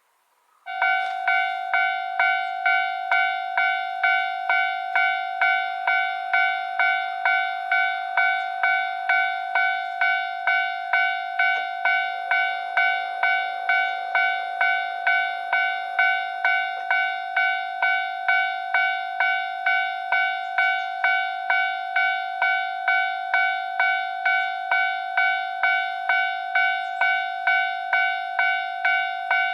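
Japanese railway level-crossing warning bell ringing its alarm, which starts about a second in. Even ringing strokes repeat about one and a half times a second, signalling that a train is approaching.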